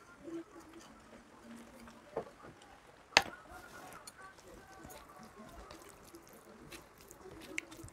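A plate set down on a stack of plates with a single sharp clink that rings on briefly, about three seconds in, after a softer knock a second earlier. Then faint squishing and small clicks as rice is mixed with curry by hand.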